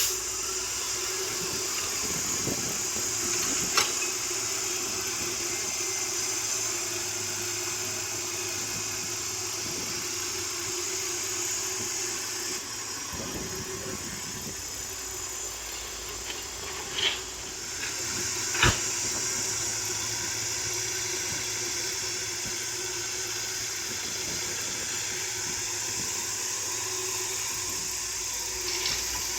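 Caterpillar excavator running steadily, its engine and hydraulics making an even hum with a high hiss. There are three sharp knocks, the loudest about two-thirds of the way through.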